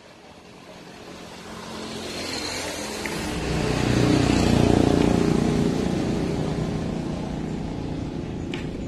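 A motor vehicle passing by: its engine grows louder over about four seconds, peaks around the middle, then fades away more slowly. A sharp tap sounds near the end.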